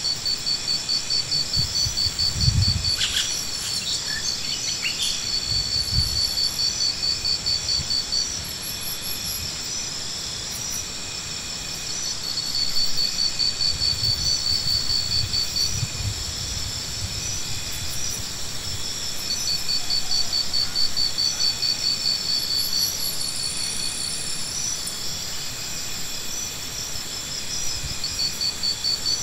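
Insects chirping: rapidly pulsed trills that start and stop every few seconds over a steady high-pitched drone. A few low thuds come about two and a half and six seconds in, and again around fourteen to sixteen seconds.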